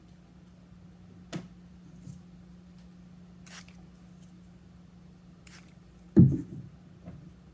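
Handling sounds of leather-hard clay slabs and tools on a work table: a sharp click about a second in, two short scrapes, then a dull thump a little after six seconds, the loudest sound, over a steady low hum.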